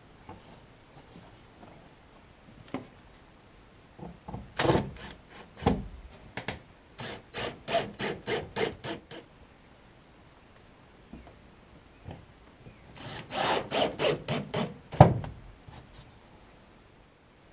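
Hand sawing wood in runs of quick, even strokes, about four a second, with pauses between runs, and one sharp knock near the end.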